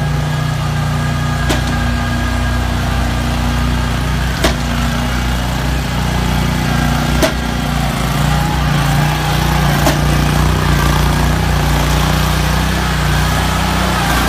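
Engines of a compact tracked mini excavator and a ride-on tracked dumper running steadily, with a few sharp clicks or knocks every few seconds in the first part.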